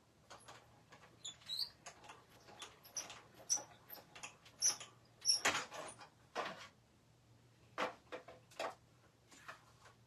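Embossing cardstock: a plastic 3D embossing folder is handled and run through a hand-cranked embossing machine, giving irregular clicks, knocks and short squeaks, the loudest knock about five and a half seconds in.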